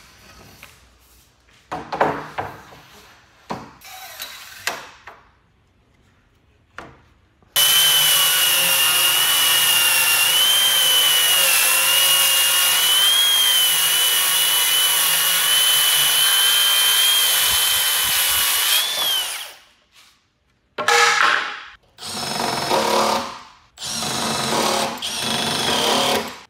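A few knocks and clatter as an aluminium guide rail is handled on a pine tabletop. Then a circular saw runs along the rail for about twelve seconds, a steady high whine as it cuts through the pine panel, and winds down. Near the end, three short bursts of a cordless drill boring into the pine.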